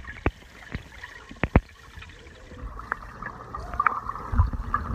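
Water in a swimming pool heard through an underwater camera as dogs paddle past: muffled gurgling and churning, with several sharp clicks in the first two seconds and heavier sloshing near the end.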